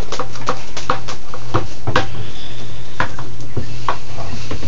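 A rigid plastic siphon pipe knocking and clattering against the glass and fittings of a reef-tank sump in a series of irregular sharp taps as the siphon is being started, over a steady low hum.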